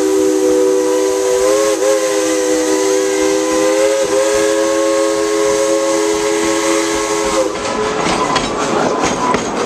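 A steam locomotive's chime whistle is held in one long blast, several notes at once, with slight wavers in pitch, and cuts off about three-quarters of the way in. Then the passenger coaches rolling by take over, their wheels clattering and clicking on the rail joints.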